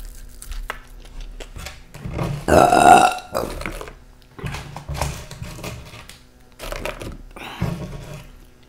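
A loud burp about two and a half seconds in, lasting about a second. It is followed by the crackle of crisp tortilla chips being handled and dropped onto a cardboard pizza box.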